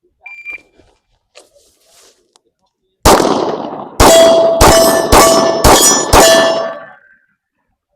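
Shot timer beeps once to start, then six gunshots in quick succession about half a second apart, the first coming nearly three seconds after the beep, each followed by the ringing of struck steel targets.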